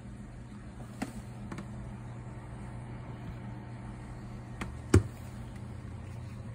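Steady low hum of aquarium equipment. A few faint clicks, and one sharp knock on the tank glass about five seconds in.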